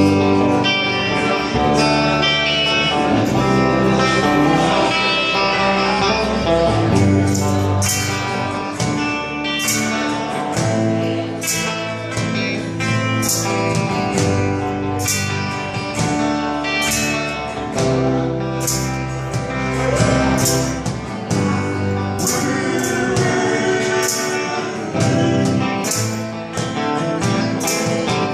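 A band playing a song: guitar with singing, and sharp regular percussion hits coming in about seven seconds in.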